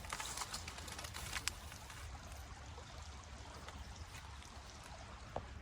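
Faint steady rush of a creek running, with a few soft crackles in the first second or so.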